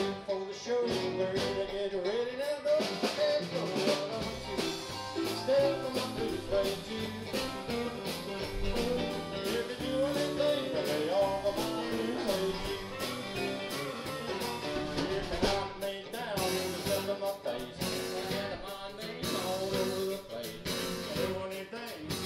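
Live amplified band playing a song on electric guitars, electric bass, keyboard and drum kit.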